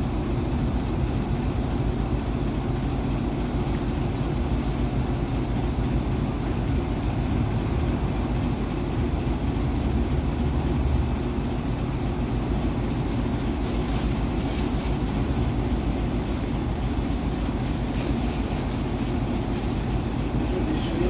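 PAZ 320414 minibus engine idling while the bus stands still, heard from inside the passenger cabin as a steady low drone.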